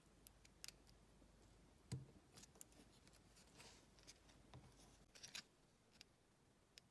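Faint scattered clicks and taps of fingers handling the bare parts of an opened iPod mini: circuit board, battery and click-wheel assembly. There is a louder knock about two seconds in.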